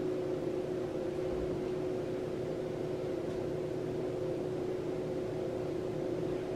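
Steady machine hum holding a constant mid-pitched tone over a faint hiss.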